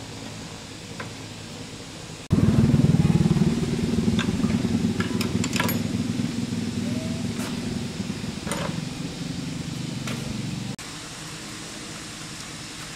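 A machine running loudly with a rapid, even pulsing for about eight seconds, starting and stopping abruptly, with a few sharp clicks and knocks over it.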